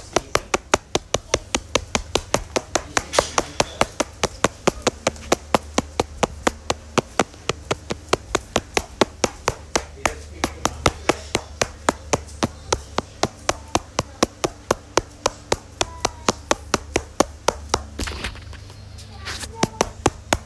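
Rapid, even clicking or tapping, about four clicks a second, over a low steady hum; the clicking breaks off for about a second and a half near the end, then resumes.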